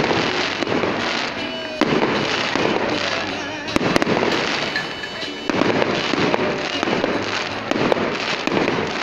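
Fireworks display: aerial shells bursting into dense crackling, with fresh volleys starting sharply about two seconds and five and a half seconds in. Music and crowd voices run underneath.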